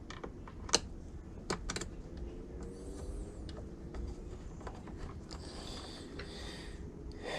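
Small clicks and taps of plastic instrument-cluster parts and small screws being handled, with a few sharp clicks in the first two seconds and softer handling noise after.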